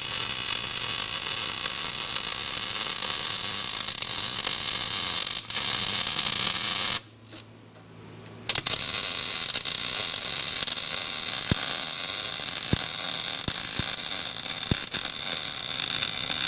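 MIG welder laying weld beads, a steady crackling hiss. The arc stops for about a second and a half after some seven seconds, then starts again for a second run.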